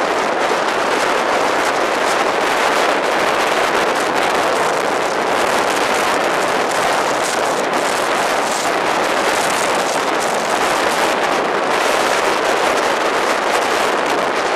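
Gale-force wind at Beaufort 8–9 blasting across the microphone: a loud, steady rush with constant crackling.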